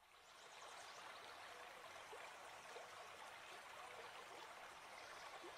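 Faint running water, like a small stream or trickle, fading in at the start and then holding steady.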